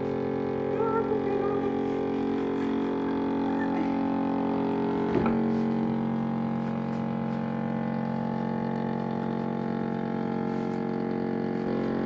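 Motor-driven pump of a foot-casting device for custom ski-boot insoles, running with a steady drone at one unchanging pitch while the foot impression is taken. A short knock sounds about five seconds in.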